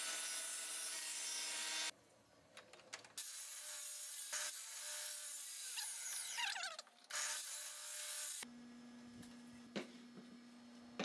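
Table saw blade running and ripping wooden boards in several short, abruptly edited cuts, its pitch sliding as the blade takes the load about six seconds in. Near the end the saw stops and a steady low hum remains, with a few light knocks of boards being handled on a wooden bench.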